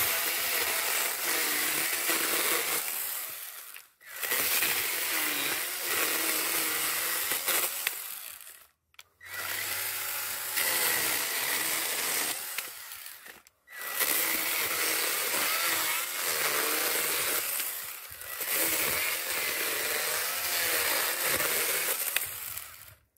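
Worx WG324E 20 V cordless mini chainsaw cutting into a thin wooden stump. The motor and chain run in five stretches of about four seconds each, with short stops between them. A high whine runs through each stretch, and its lower tone wavers as the chain bites into the wood.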